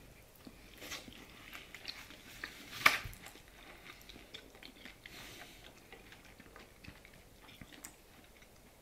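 People chewing and eating instant noodles: quiet, scattered mouth sounds and small clicks, with one sharper click about three seconds in.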